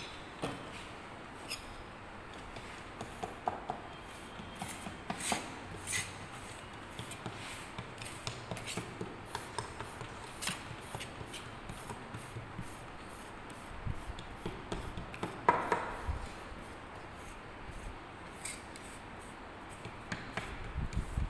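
Small steel moulding trowel scraping and smoothing packed moulding sand in a mould flask, in short irregular strokes, with a louder scrape a little past the middle.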